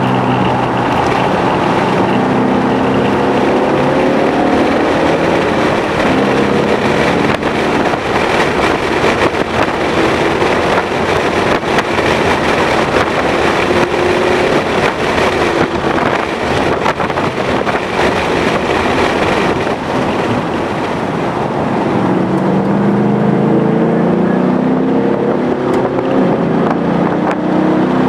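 2011 Ford Mustang GT's 5.0-litre V8 running hard on a race track under heavy wind and road noise. The engine note climbs as the car accelerates, plainly again in the last several seconds.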